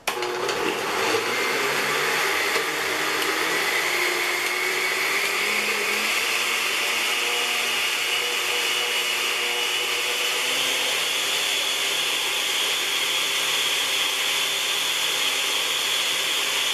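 Countertop blender with a glass jar running as it purées cooked chicken breast and eggs. It starts suddenly at low speed, its motor whine climbs in pitch over the first several seconds, then it runs steadily.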